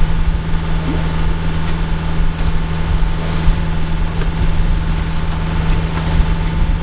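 A sailboat's inboard engine running steadily, a constant low drone with a thin steady tone above it.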